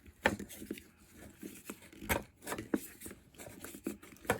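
Irregular clicks and knocks of tools and small plastic and metal chainsaw parts being handled during disassembly, about ten sharp taps with the loudest one about two seconds in.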